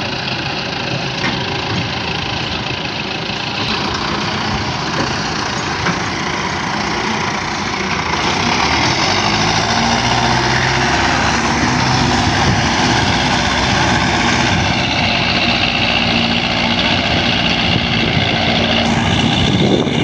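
Tractor diesel engines of a Belarus and a Massey Ferguson 385 running under load as they pull together. The engines get louder about eight seconds in, and the sound changes abruptly a few times.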